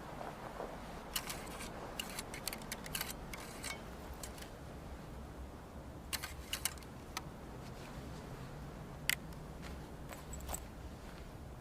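Scattered light metallic clicks and clinks, about a dozen, from handling a Whitworth rifle, with the sharpest click about nine seconds in, over a low steady hum. No shot is fired.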